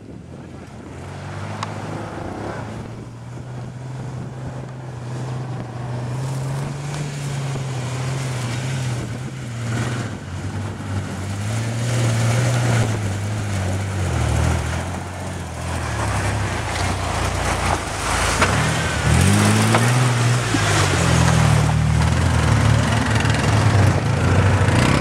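1993 Ford Explorer Sport's 4.0-litre V6 engine pulling at low speed as the 4x4 crawls over rough dirt and rock, its pitch rising and falling with the throttle. It gets louder as it goes, with a quick rev climbing in pitch about three-quarters through.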